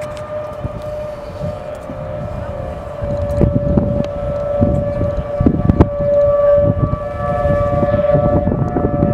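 Outdoor tornado warning siren sounding a steady tone, with wind buffeting the microphone and getting louder about three seconds in.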